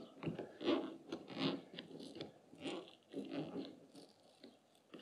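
Rubber seal around a fuel tank strainer being pried and peeled loose by hand: a run of short, irregular scraping and rubbing noises, stopping about three and a half seconds in.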